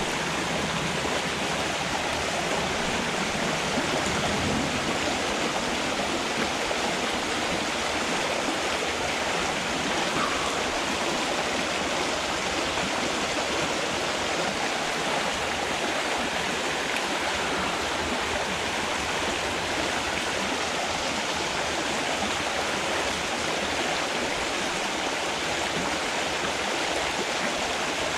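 Small creek's water running steadily, an even rushing babble with no breaks.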